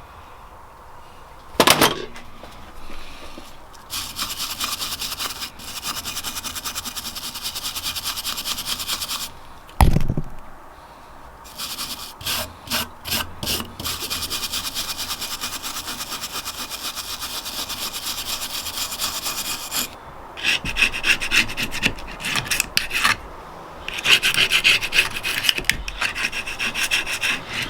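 Scraping and rubbing against a surface, in long steady stretches and bursts of quick strokes, with two sharp knocks.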